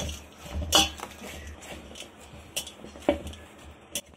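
Pizza dough being kneaded by hand in a stainless steel bowl: a few separate slaps and knocks of the dough and hand against the metal bowl, the loudest about a second in.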